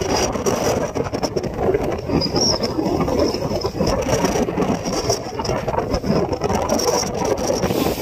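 Steady rumble of a fishing boat's engine at sea, with wind buffeting the microphone.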